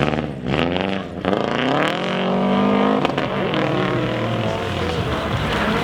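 Rally car engine accelerating hard, its pitch rising for about a second and then holding, with a sudden change about three seconds in.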